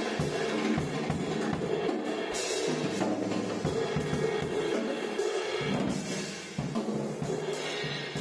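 Acoustic drum kit being played, with bass drum and snare strikes under ringing cymbals.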